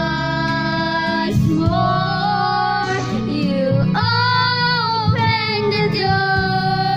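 A girl singing karaoke into a handheld microphone over a videoke backing track, holding long notes one after another.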